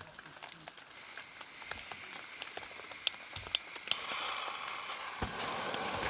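Canister gas stove being lit: a faint gas hiss, three sharp clicks of the lighter a little after three seconds in, then the burner catches and runs with a steady rushing hiss. A single dull thump comes a little after five seconds in.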